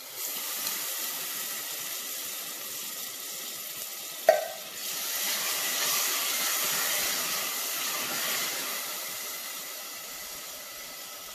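Canned chopped tomatoes sizzling in hot ghee and fried onions in an aluminium pressure cooker as they are poured in and stirred. The sizzle swells in the middle and dies down near the end. One sharp knock on the pot a little over four seconds in.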